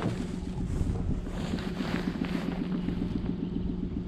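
Small outboard motor running steadily at low throttle, a low, even hum, with wind buffeting the microphone.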